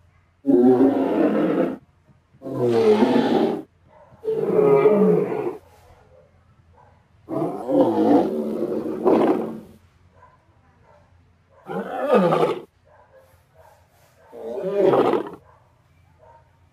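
Dinosaur roar sound effect, repeated six times with short pauses between roars; the fourth roar is the longest, at over two seconds.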